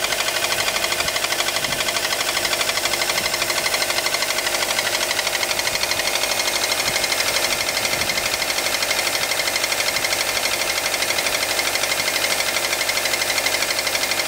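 Subaru Impreza's EJ15 1.5-litre flat-four engine running cold, with a steady, rapid, even knocking in time with the engine: a cold-engine knock.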